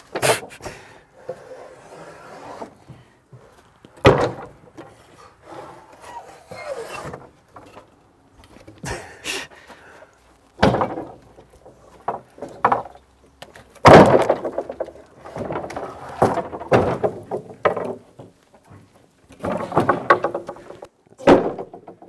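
Rough-sawn wooden lumber slabs being handled and stacked: a string of sudden knocks and clatters of wood on wood, the loudest about two-thirds of the way through, with quieter scraping and shuffling between them.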